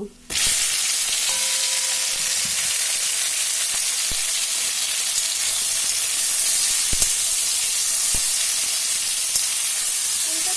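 Whole kul (Indian jujube) berries dropped into hot mustard oil with panch phoron and dried red chillies: a loud sizzle cuts in suddenly and carries on as a steady high hiss, with a few faint clicks.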